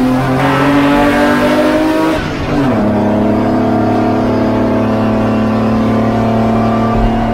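Kissling Opel Omega 3000 24V race car's straight-six engine under power. Its pitch rises, drops sharply about two and a half seconds in, then holds and climbs slowly again.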